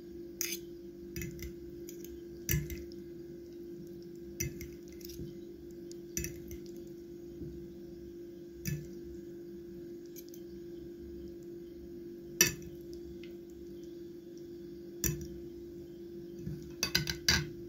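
Metal forks tossing sauced mushrooms on a plate: scattered sharp clinks of the tines against the plate, the loudest about twelve seconds in and a quick run of clinks near the end, with soft wet sounds of the food, over a steady low hum.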